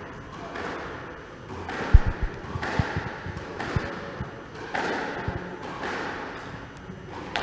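A squash ball thudding off the court walls and floor as the players knock up: a quick cluster of dull thuds about two seconds in, then single thuds further on.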